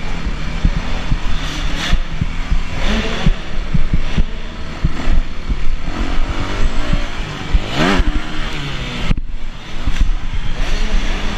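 Yamaha YZ250F single-cylinder four-stroke motocross engine revving up and down as the bike is ridden hard over dirt, with frequent knocks and rattles from the bike and camera mount. It revs up sharply near eight seconds in, then the sound cuts out briefly just after nine seconds.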